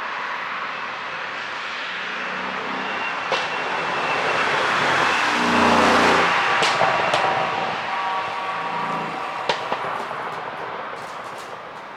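Mercedes-AMG S63 coupe's twin-turbo V8 driving past, its engine note swelling to a peak about halfway and then fading. A few sharp exhaust pops come on the overrun, set up by a pop-and-crackle ECU tune.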